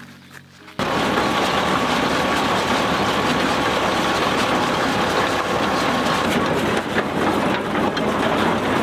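Tractor engine running steadily, cutting in abruptly about a second in.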